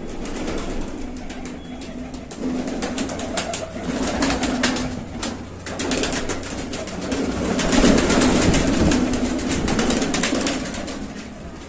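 Domestic pigeons cooing in a loft, repeated low coos, mixed with many quick wing flaps and clatters as birds flutter around, busiest about two thirds of the way through.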